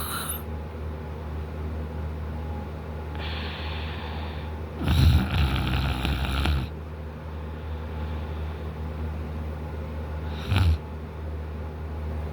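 A sleeping man snoring through a wide-open mouth. A breathy hiss of breath comes first, then a long, loud snore about five seconds in, and a short snort near the end.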